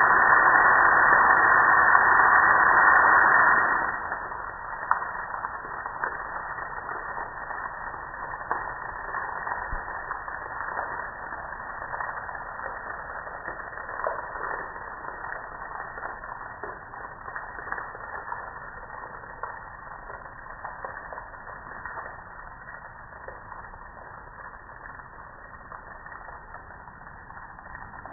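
Water from a garden hose spraying onto a gas grill, a loud steady hiss that cuts off about four seconds in. After that, water and soap suds dripping and trickling off the grill, with many small scattered ticks of drops.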